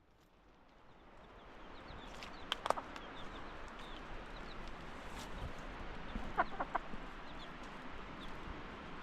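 Chickens clucking in short bursts, twice, with small high chirps between, over a steady background hiss that fades in at the start.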